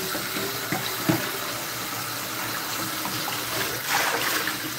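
Tap water running into a wok in a sink while it is scrubbed by hand, with a louder splash near the end as the wok is tilted.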